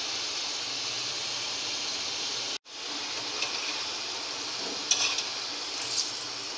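Potato fries sizzling steadily in hot oil in a steel kadai, crisp and fully fried, with a few light clinks of a wire spider strainer and spatula against the fries and pan. The sizzle cuts out for an instant about two and a half seconds in.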